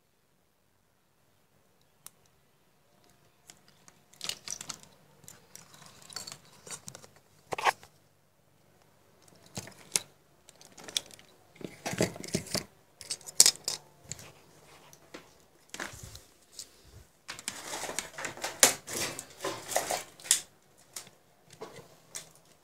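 Irregular clicks, taps and rustling from hands handling small objects, wires and the camera on a workbench, starting about four seconds in, with the loudest clusters near the middle and toward the end.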